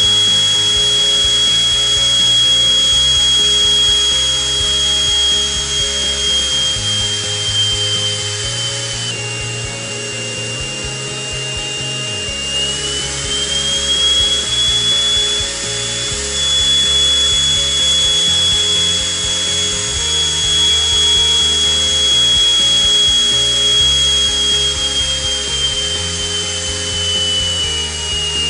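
Miniature 3D-printed metal turbine jet engine running at speed on a test stand, about 33,000 RPM: a steady high whine that drops a little about a third of the way in, climbs back, and falls off near the end as the engine is throttled. Background music plays underneath.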